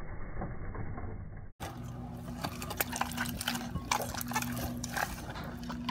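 White glue-and-borax slime being squeezed and pulled apart by hand, giving a run of quick wet, sticky clicks and squelches. About a second and a half in, the sound cuts out for a moment, and after that the clicks are sharper, over a low steady hum.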